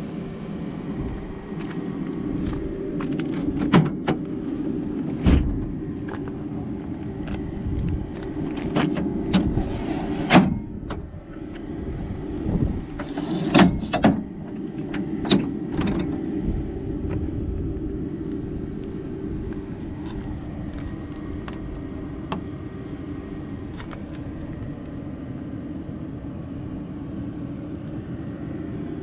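Inside a 2022 Ford F-150 Lightning battery-electric pickup: a steady hum with scattered sharp clicks and knocks, mostly in the first half, and a low thump about five seconds in.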